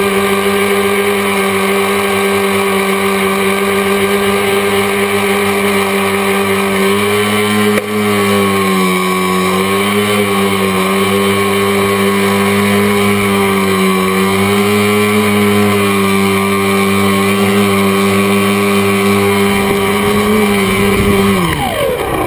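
Tricopter's electric motors and propellers heard from the onboard camera, humming steadily with the pitch wavering slightly as the throttle changes. Near the end the pitch falls steeply as the motors spool down on landing.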